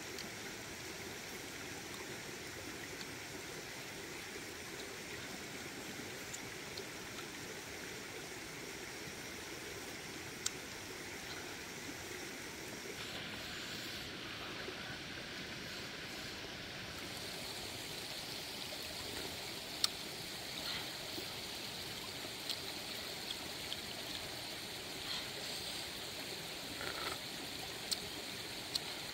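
Small stream running steadily, with a few short clicks scattered mostly through the second half.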